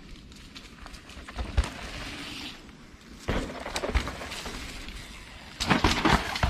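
Mountain bike clattering over rough dirt, with sharp knocks about a second and a half in, a burst of them at three to four seconds, and a dense cluster of heavy clatter near the end.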